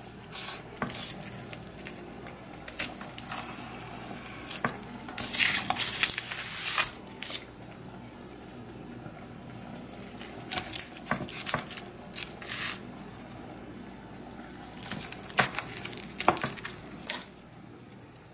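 Table knife slicing through a round of baked cornbread: short crackly bursts of crumbly crunching and scraping with each cut, in several separate spells with pauses between.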